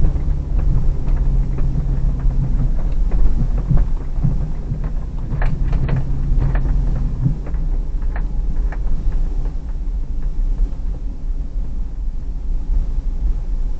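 Hyundai Terracan's 3.5-litre V6 running low and steady as the SUV creeps along a snowy track, heard from inside the cabin. Frequent small knocks and clicks come through during the first nine seconds or so, and the engine note eases off about seven seconds in.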